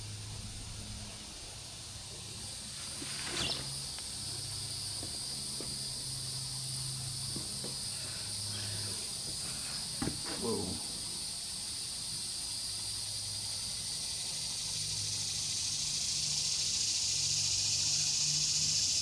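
Steady high-pitched insect buzzing from the surrounding trees, swelling louder toward the end, with a couple of brief knocks about three and ten seconds in.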